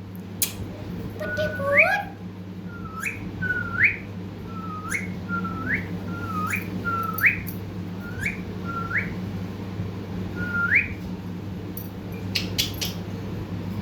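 Pet parrot whistling a short upswept call over and over, about eleven times: a brief low note that jumps sharply up in pitch each time. A steady low hum runs underneath.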